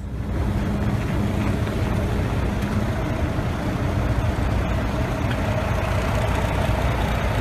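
A vehicle engine running steadily under a constant rush of noise, fading out near the end.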